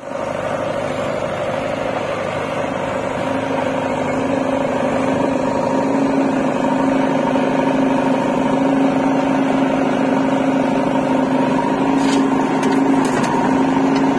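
Diesel engine of a JCB 3DX backhoe loader running at a steady speed, a constant hum that grows slowly louder.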